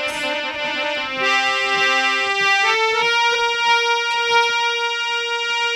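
Electronic keyboard playing sustained notes. It shifts through a few held chords in the first three seconds, then holds a single steady note.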